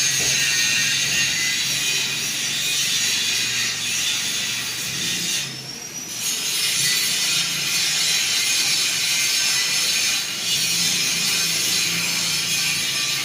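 Panasonic F-560Z2 industrial ceiling fan running: a steady hiss of moving air over a low motor hum, dropping briefly about halfway through.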